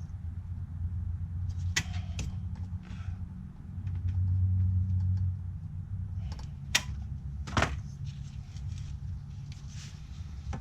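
A few sharp metallic clicks and knocks of hand tools working on the clutch slave cylinder under a car, over a steady low hum that swells for about a second midway.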